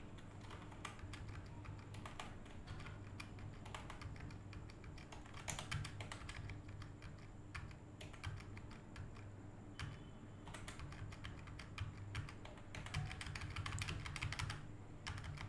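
Computer keyboard keys pressed in quick clusters of clicks with short pauses between, over a faint steady low hum.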